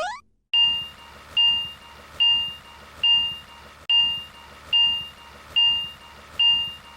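Japanese railroad crossing warning bell: an electronic ding repeating about once a second, eight strikes in all, each ringing briefly then fading. A short rising boing-like glide comes just before the first strike.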